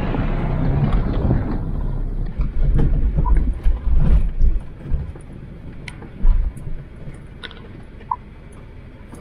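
Small hatchback driving close past on rough, stony grass, its engine running and its tyres crunching and knocking over loose stones. After about four and a half seconds this gives way to quieter, steady driving noise inside the moving car, with occasional clicks.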